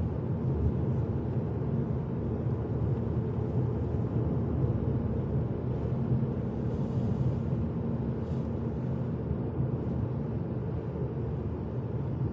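Steady low rumble of a car's engine and tyres on a snowy, slushy road, heard from inside the cabin. Brief hisses come about seven and eight seconds in.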